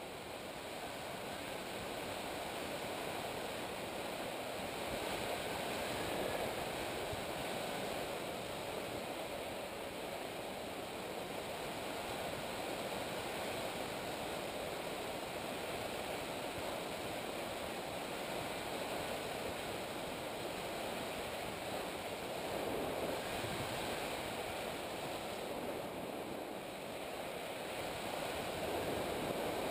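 Steady rushing wind noise on an open grass field, swelling and easing slowly, with no engine tone heard.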